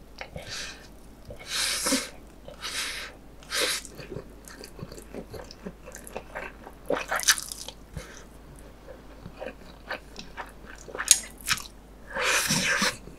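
A person slurping spicy stir-fried instant noodles in several loud, hissing slurps, with wet chewing and small mouth clicks between them. A longer slurp from the spoon comes near the end.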